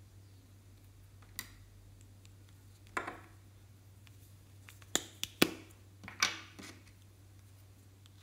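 Sharp plastic clicks and taps from small plastic cosmetic containers being handled and pressed over a glass dish, several close together about five to six seconds in, over a low steady hum.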